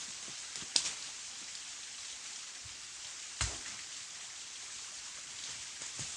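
Steady hiss of rain, with two louder single knocks, one about a second in and one about three and a half seconds in.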